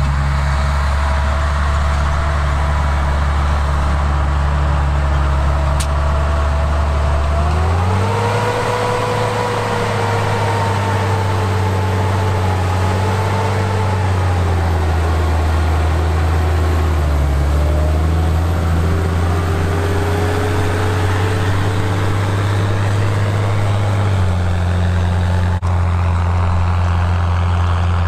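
Fendt Favorit 818 tractor's six-cylinder diesel engine running steadily under load while pulling a seed drill through tilled soil. The engine note steps up in pitch about a quarter of the way in, drops around the middle, rises again, and shifts once more near the end.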